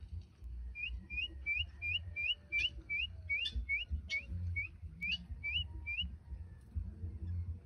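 Birds calling: a quick run of about fifteen short, rising whistled notes, about three a second, with sharper single calls between them, stopping about six seconds in.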